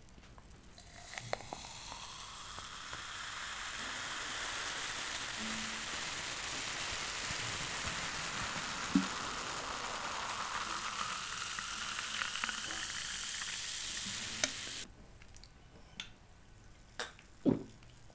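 Coca-Cola poured from a plastic bottle into a glass mug, fizzing as it fills. The pitch of the pour rises as the mug fills, and the sound cuts off suddenly about fifteen seconds in.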